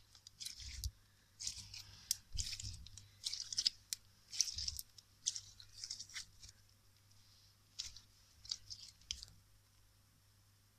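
Clear orange crystal slime being kneaded and stretched between the fingers, popping and crackling in a run of short bursts that stop about nine seconds in. The slime has been warmed, so it stretches without breaking.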